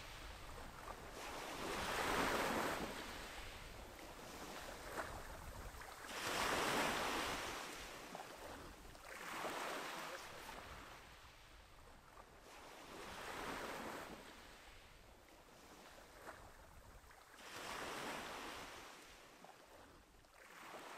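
Sea waves washing ashore, a swell of surf noise rising and fading every four seconds or so.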